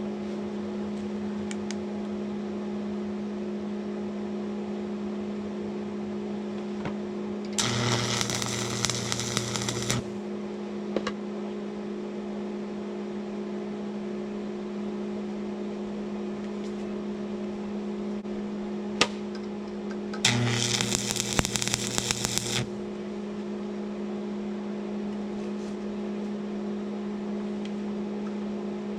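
Arc welding in two bursts of about two seconds each, crackling and buzzing, as the cracked weld on a log splitter's hydraulic fitting is re-welded. A steady electrical hum runs underneath, with a sharp click between the bursts.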